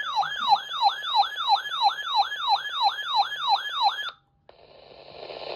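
Electronic siren yelping, its pitch sweeping rapidly up and down about three and a half times a second, then cutting off suddenly about four seconds in. After a brief silence, a hiss of radio static fades in.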